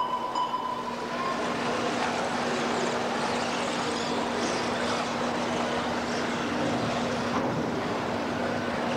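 1/10-scale RC cars racing on a dirt track: a steady mix of small-motor whine and tyre noise, with a high steady tone fading out about a second in.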